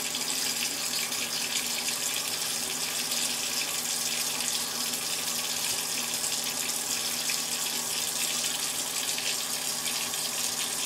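RV 12-volt freshwater pump running steadily while water rushes through the lines, a low hum under a hissing flow, as the newly replumbed system is pressurised for a leak test.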